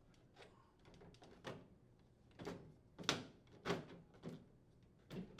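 Plastic control assembly of a microwave oven being pushed down into the metal frame: a series of faint knocks and clicks about half a second apart, with a sharper, louder snap near the end as it seats.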